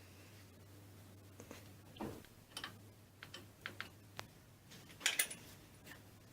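Scattered light clicks and knocks of small metal parts and tools being handled on a workbench, a few at a time, the loudest cluster about five seconds in. A faint steady hum stops with a click about four seconds in.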